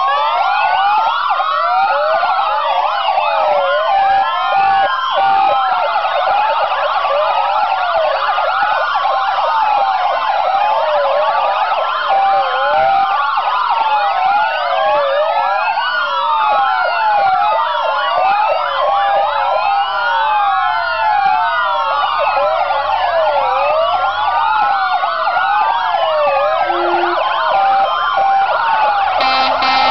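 Sirens of several fire engines wailing at once, their rising and falling tones overlapping in a dense, continuous chorus.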